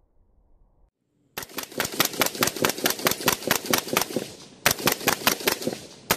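Suppressed BCM 11.5-inch short-barreled AR rifle fired rapidly with an AAC suppressor, a fast string of shots at about six a second. It pauses briefly and fires a shorter string, then a single last shot near the end.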